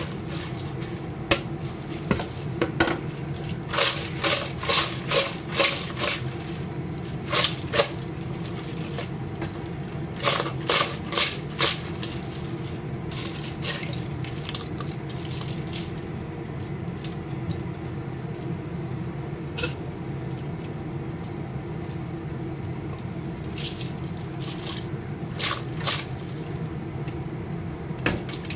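Wet mushrooms being handled and squeezed by hand in a stainless steel bowl: squishing and dripping, with several runs of quick sharp clicks against the bowl, over a steady hum.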